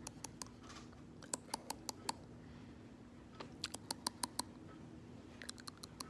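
Quick runs of sharp clicks or taps, four short bursts of several clicks each, over a faint steady hum.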